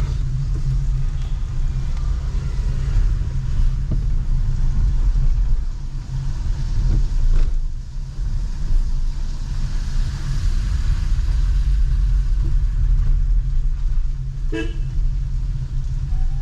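Road traffic in heavy rain: vehicle engines running under a steady hiss, with a short horn toot near the end.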